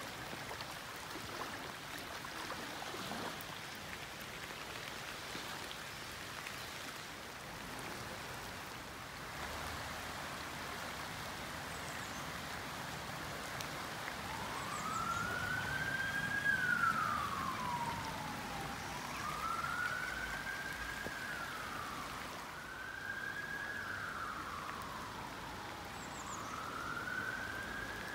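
Steady rush of a burn in spate and rain. About halfway through, an emergency vehicle's siren starts wailing, rising and falling slowly about every four seconds, and becomes the loudest sound.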